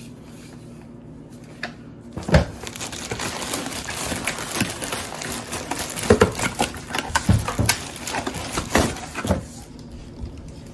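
Packaging being handled during unboxing: rustling and crinkling with repeated knocks and clicks as parts are taken out, with a sharp knock about two seconds in and another about six seconds in.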